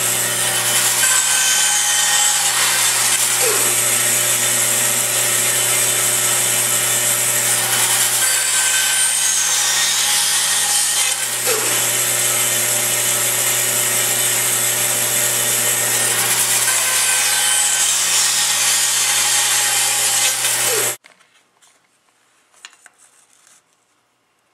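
Band saw running steadily with its motor hum, the blade sawing through wood. The sound cuts off suddenly near the end, leaving near quiet.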